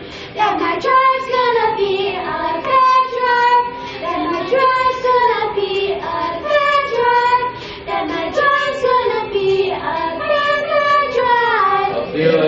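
A group of children singing a song together in a series of sung lines, each falling in pitch at its end.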